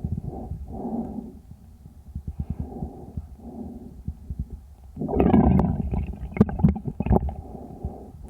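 Tracheal breath sounds of a sick calf, heard through a stethoscope microphone: a series of breaths, with a louder, harsher breath about five seconds in, followed by several sharp clicks.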